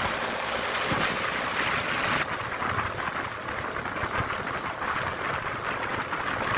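Steady rush of wind over the camera microphone on a motorcycle travelling at road speed, with the bike's running noise buried under it. The hiss eases a little about two seconds in.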